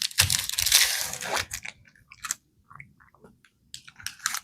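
Biting and crunching into a hard chili-coated lollipop with a gum centre (a Rockaleta). The loudest crunching comes in the first second and a half, followed by a few smaller crunches.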